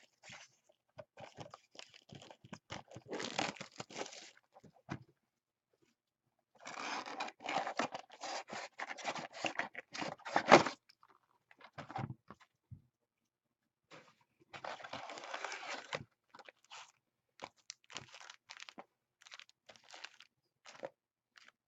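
Plastic packaging on a box of trading cards being torn open and crinkled, in irregular bursts of tearing and crackling rustle with short pauses between them.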